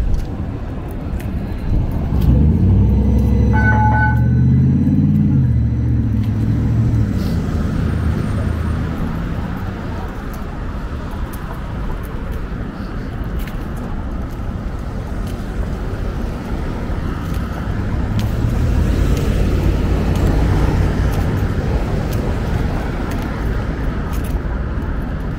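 Downtown street traffic: a vehicle passes close by a few seconds in, its engine pitch sliding as it goes, with a short beep in the middle of it, and another vehicle rumbles past about three-quarters of the way through, over steady road noise.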